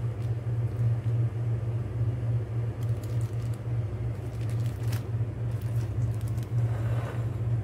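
A steady low rumble from an unseen machine, with a few faint crinkles of plastic bags being handled.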